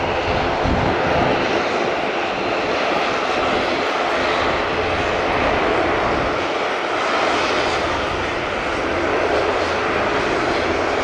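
ATR 72-600's twin turboprop engines running as the aircraft rolls along the runway after landing: a steady, loud drone and hiss, with a propeller hum most distinct in the first second.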